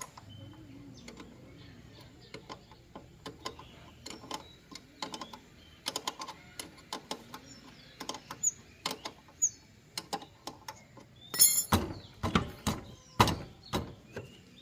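A series of scattered clicks and knocks of hard objects being handled, getting busier, with a cluster of loud knocks and clatter near the end.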